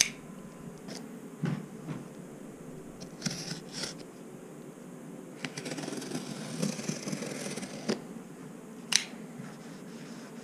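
Shipping box being opened by hand: cardboard and packing material scraping and rustling in short bursts, with a longer stretch of rustling in the middle and several sharp clicks and taps.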